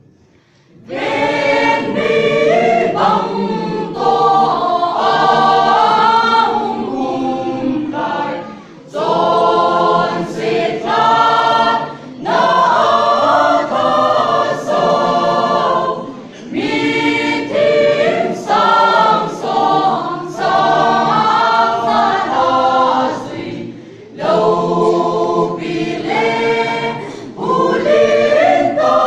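Mixed choir of young women and men singing unaccompanied, entering about a second in and going on in phrases with short breaks between them.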